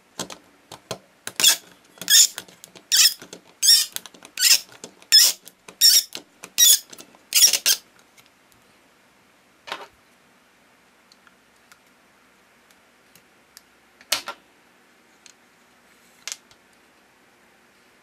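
Plastic toy noodle press (Bandai Cooking Puchi Food) squeaking in about nine sharp, high squeals, roughly one every three-quarters of a second, as the dough is forced through it; the maker puts the squeal down to the tool itself and wonders whether oiling it would cure it. A few single clicks follow later.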